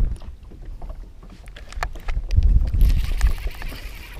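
Wind rumbling in gusts on the microphone of a small boat on rippled water, strongest about two and a half seconds in, with a few small clicks.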